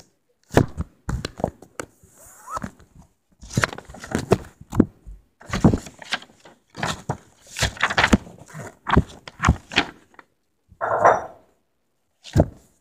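Irregular rustling, scraping and bumping of fabric and objects rubbing against a covered phone as it is carried in a backpack.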